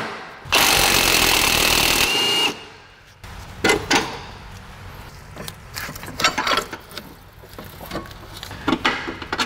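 A power tool runs loudly for about a second and a half on the rear suspension hardware, ending in a brief high whine. It is followed by scattered metallic clinks and knocks as parts are handled.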